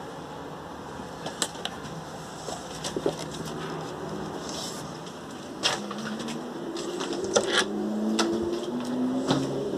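Clicks and knocks from a phone being handled and moved, over a steady city hum. From about six seconds in, a pigeon coos in low repeated phrases.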